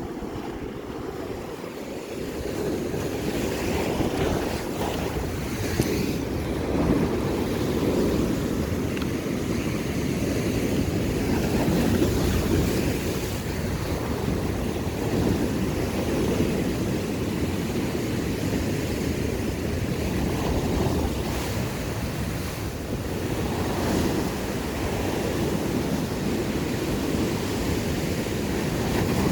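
Sea waves washing against shore rocks, with wind rumbling on the microphone; a continuous wash that swells and eases every few seconds.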